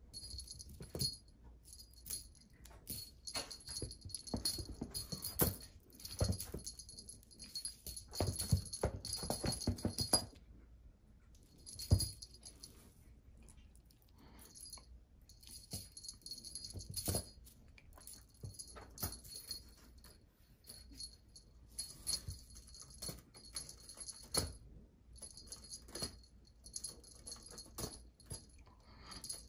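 A small bell on a spring-wire cat wand toy jingling in bursts as it is shaken, with short pauses, over soft knocks and scuffles of exotic shorthair kittens batting at it.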